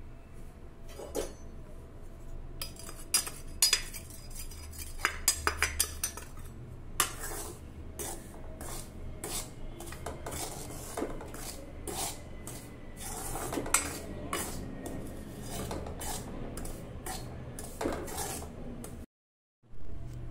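Metal spoon scraping and clinking against a metal kadai while stirring dry rice flour, with a quick run of sharp clinks a few seconds in.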